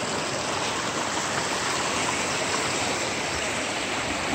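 Shallow river running over rocks and stones: a steady, even rush of water.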